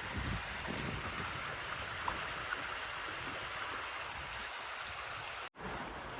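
River water flowing and rushing steadily over rocks, a continuous hiss of running water. It cuts out for an instant near the end.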